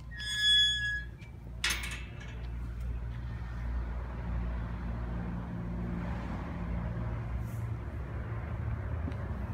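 A brief high-pitched squeal at the start and a sharp click soon after, then the low rumble of a motor vehicle's engine that swells and holds steady for the rest of the time.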